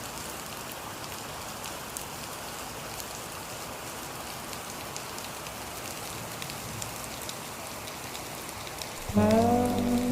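Steady rain falling, an even hiss with scattered sharp drop ticks. About nine seconds in, a song's pitched notes come in abruptly over the rain and are louder than it.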